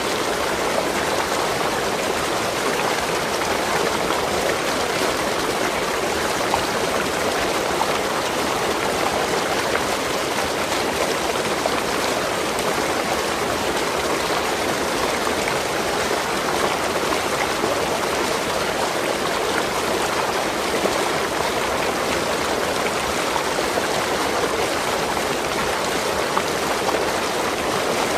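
Waterfall: water falling and rushing in a steady, unbroken splash.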